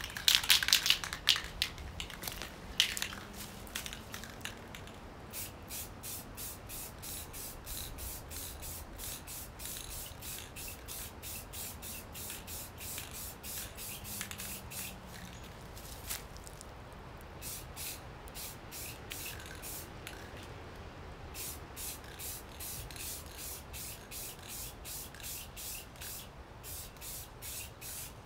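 Aerosol can of clear coat hissing in quick short bursts, about two a second, as thin coats are laid on a painted bicycle frame. There are a few longer, louder blasts at the start.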